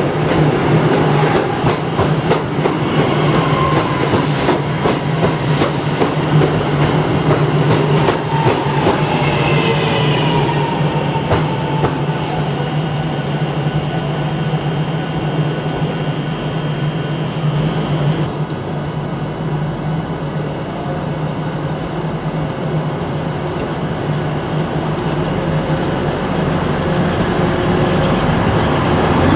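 Passenger multiple-unit train pulling out past the platform: a steady low hum from its traction, wheels clattering over rail joints, and a brief high wheel squeal about ten seconds in. It dies down after about eighteen seconds, and another train is running past near the end.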